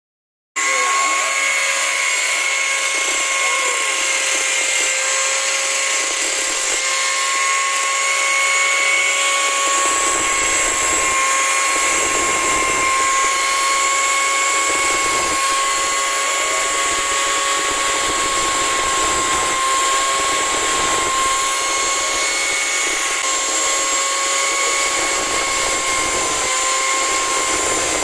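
Small electric grinder sharpening a chainsaw chain, running with a steady high whine that starts about half a second in.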